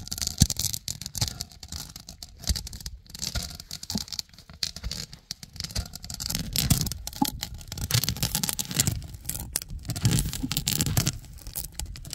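Wild pistachios being crushed under a heavy stone rocked back and forth on a flat stone slab: gritty stone-on-stone scraping with irregular crackles and clicks as the nuts break.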